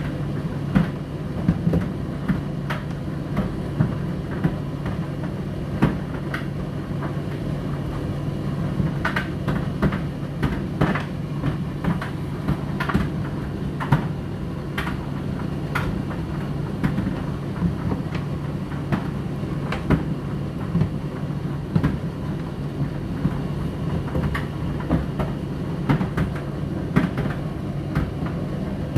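Indesit IDC8T3 condenser tumble dryer running: a steady motor and drum hum with irregular clicks and light knocks of laundry tumbling in the drum.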